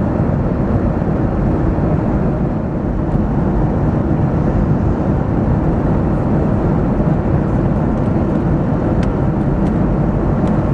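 Steady cabin noise inside a Boeing 737-800 airliner in cruise: the even rush of engine and airflow noise heard from an economy seat.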